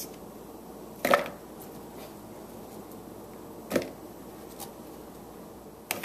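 Raw potato wedges dropped into a mixing bowl of spices and oil: a few separate knocks, the loudest about a second in and another near the four-second mark.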